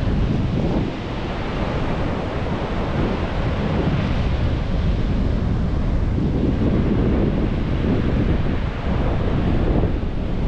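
Ocean surf breaking and washing up a sandy beach, a steady rush of waves, with wind rumbling on the microphone.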